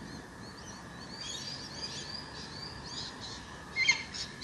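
Several birds chirping and calling: a steady chatter of short high chirps, with a louder burst of sharp calls near the end.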